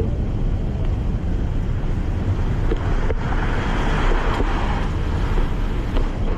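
Steady rumble of a stroller and its ride-on kid board rolling over a concrete sidewalk, with wind on the microphone.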